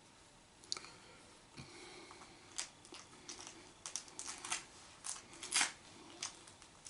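Scattered brief rustles and scratchy clicks of hair and hands handling a wig being fitted onto the head, clustering and growing louder about four to six seconds in.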